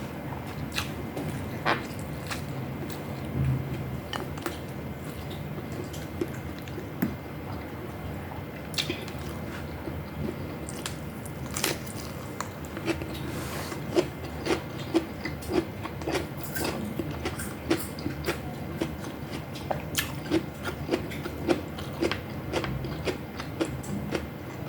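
A person eating close to the microphone: chewing and biting, with many sharp, irregular clicks and smacks, a few louder toward the second half.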